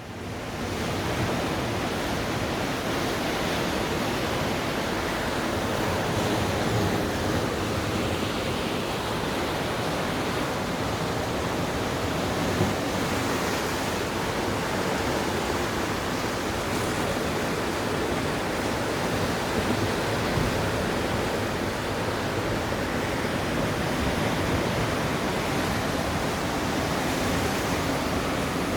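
Heavy surf on a rough sea whipped up ahead of a typhoon, heard as a steady rushing noise with wind, without separate wave crashes standing out.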